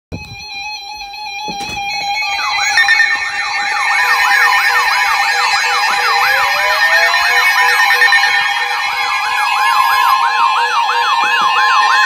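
Several weather alert radios sounding their alarms together for a severe thunderstorm warning: steady alert tones, joined about two and a half seconds in by a siren-like warble that sweeps up and down about three times a second.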